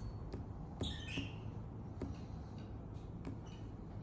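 Faint taps of a fingertip on phone touchscreens over a low steady hum, with one brief high chirp about a second in.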